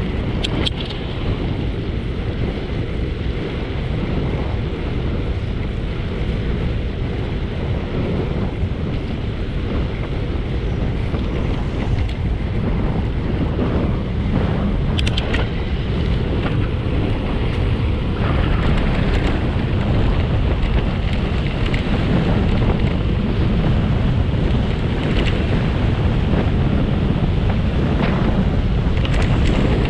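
Wind buffeting the microphone while moving along a road, with a steady low rumble that grows a little louder about two-thirds of the way through. A few sharp clicks come near the start, about halfway and near the end.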